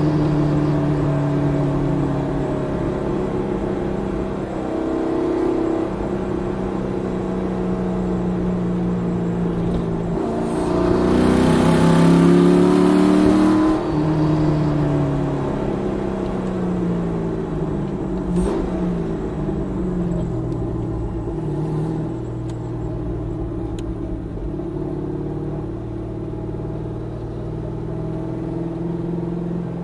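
Mazzanti Evantra's 7.0-litre V8 heard from inside the cabin, running steadily, then pulling hard about a third of the way in as the revs climb to the shift lights and it gets louder. The revs then fall away, with a sharp crack a few seconds later, and the engine settles back to a steady run.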